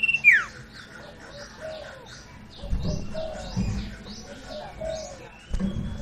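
Sirtu songbird calling: a long whistle ends in a quick downward-sweeping note, followed by a run of short high chirps and a few lower curved notes. Low soft thumps come about three seconds in and again near the end, as the caged bird hops and flaps its wings.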